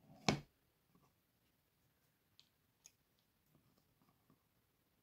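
Small clicks and taps of a wooden box frame and its backing board being handled and fitted, with one sharper knock just after the start and a few faint clicks later on.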